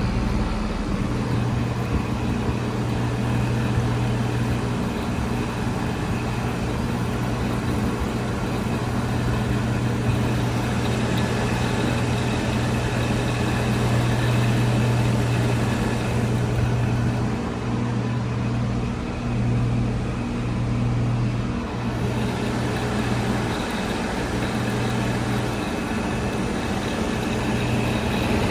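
Outdoor heat pump units running in heat mode: a steady compressor hum with fan noise, the nearest unit's coil still iced up.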